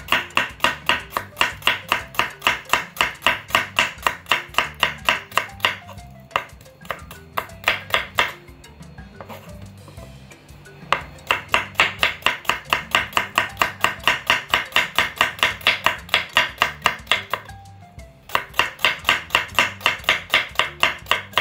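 Knife slicing shallots on a wooden cutting board: quick, even knife strikes on the board, about five a second, in three long runs with short pauses between them.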